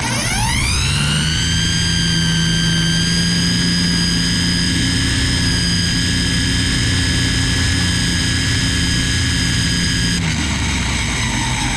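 Ryobi string trimmer spinning up to speed with a rising whine, running at a steady high whine, then slowing with a falling pitch near the end.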